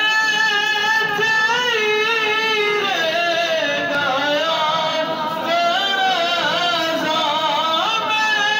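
A man singing a devotional Durood-o-Salaam into a microphone, in long, drawn-out notes that waver and slide.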